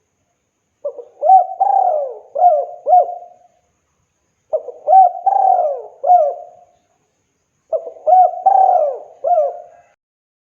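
Spotted dove (tekukur) cooing: three phrases, each a run of several rising-and-falling coos lasting two to three seconds, with a short pause between phrases.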